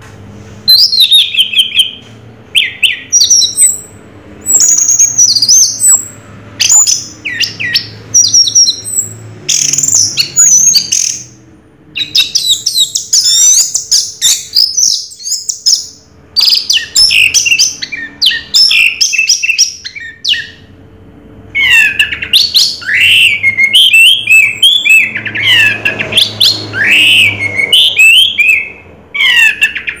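Orange-headed thrush (anis merah) singing loudly: rapid phrases of quick, varied whistled notes that sweep up and down in pitch, coming in bursts a few seconds long separated by short pauses.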